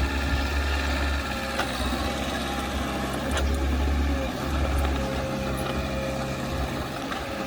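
Diesel engine of heavy earthmoving machinery running steadily, with a few short sharp clicks.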